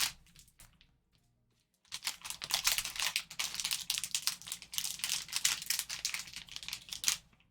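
Card pack packaging being torn open and handled: a fast, irregular run of crinkling and rustling clicks that starts about two seconds in and stops shortly before the end.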